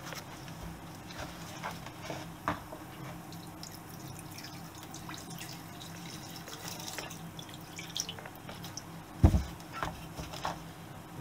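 Light, scattered clicks and ticks of small metal debris being picked or scraped out of an engine case, the shards of a broken piston, with one louder dull knock about nine seconds in.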